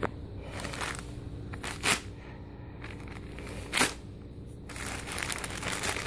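Cardboard and plastic packaging of a soundbar box being cut open and handled: two short sharp sounds about two and four seconds in, then steady crinkling and rustling from about five seconds on.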